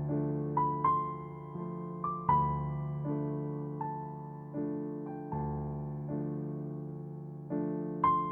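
Background music: slow, gentle electric-piano notes and chords, each struck and left to fade.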